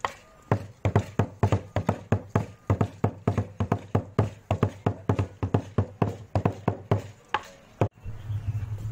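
Rhythmic beating on percussion instruments: sharp struck beats, about four a second, each with a low thud and a ringing metallic edge, which stop about eight seconds in.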